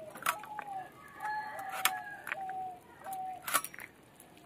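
Sharp cracks of small crab shells being cut against a bonti blade, three in all, the loudest sounds, while a chicken calls in a series of short drawn-out notes.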